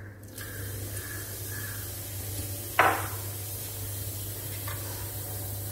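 Pounded cardamom, cinnamon and cloves sizzling in hot oil with bay leaves in an aluminium pressure cooker: a steady hiss that sets in as the spices go in. A short scrape or knock comes about three seconds in.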